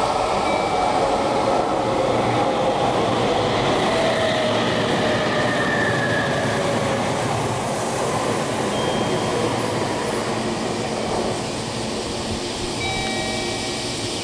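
Red Meitetsu electric train passing through the station at speed: a loud rush of wheels on rail with a faint falling motor whine. The sound eases after about ten seconds.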